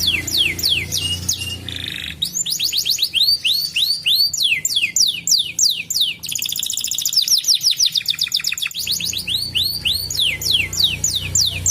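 Domestic canary singing: fast trills of repeated downward-sweeping whistled notes, the phrase changing abruptly every few seconds, with a low hum under parts of the song.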